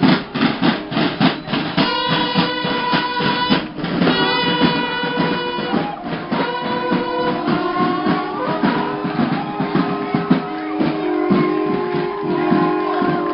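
Music with a steady drumbeat and sustained horn-like notes held over it.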